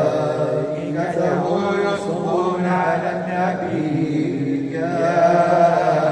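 Men chanting an Arabic religious supplication: drawn-out, wavering melodic lines over a steady low held note, one voice amplified through a microphone.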